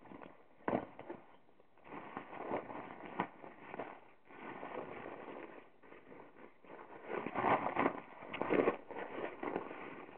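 Rustling and rubbing as a canvas gas-mask carrier bag and a rubber gas mask are handled, loudest about three-quarters of the way through, with a few sharp knocks.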